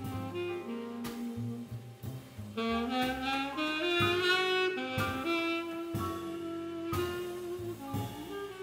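Tenor saxophone playing a swing jazz melody with held notes and a quick rising run a few seconds in, over piano, double bass and drums.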